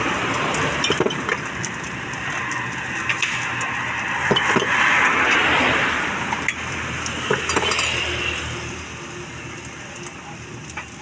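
A metal spatula clinks and scrapes against a steel wok while fried rice is stir-fried, over a steady sizzling hiss from the hot wok. The sizzle grows louder for a couple of seconds about four seconds in.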